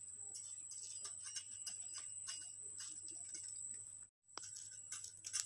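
Faint scattered crackles and ticks of bread slices toasting in a hot, dry kadai, over a steady high-pitched whine. The sound drops out briefly about four seconds in, and a few louder clicks come near the end.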